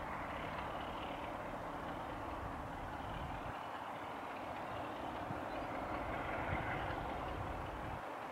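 Diesel locomotive hauling a passenger train, heard from afar as a steady engine drone with a low hum in the first few seconds.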